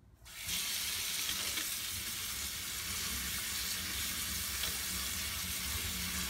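Kitchen tap running onto strawberries in a stainless-steel colander in a metal sink, rinsing them: a steady hiss of running water that starts about half a second in.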